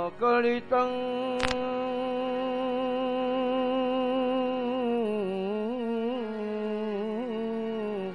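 A male voice chanting a devotional verse, holding one long sung note for several seconds and then ornamenting it with small rising and falling turns before it stops near the end. A brief sharp click sounds about a second and a half in.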